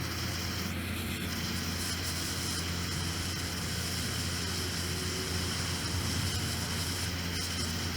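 A steady mechanical hum with a continuous hiss, like a running motor or fan.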